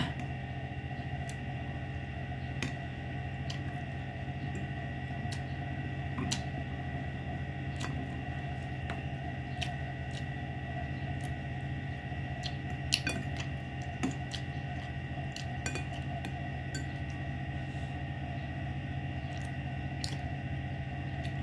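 Metal spoon and fork clinking and scraping against a ceramic bowl now and then, in scattered sharp clicks. The loudest clicks come about two-thirds of the way in. Under them runs a steady hum with a faint high whine.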